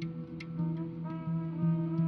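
Improvised ambient music: a low sustained drone, with a melodic line entering about half a second in and stepping up in pitch, and a couple of light percussive ticks.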